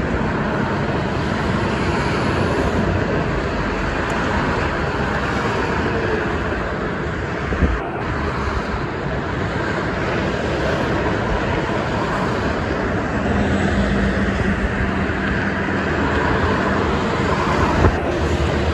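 Dense multi-lane highway traffic passing below: a steady rush of tyres and engines from cars and tractor-trailers. A semi-truck's low engine drone stands out in the second half.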